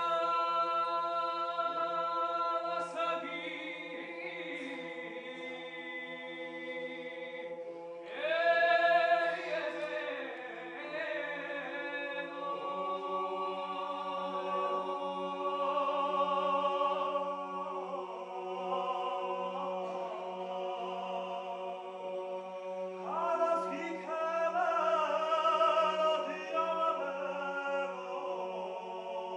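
Male vocal ensemble singing Georgian polyphonic folk song a cappella: a low drone is held steadily beneath while the upper voices sustain long chords. The singing swells louder about eight seconds in and again near the end.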